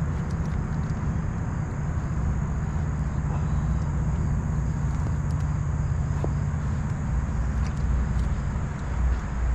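Steady low outdoor rumble on a river, with a few faint scattered ticks.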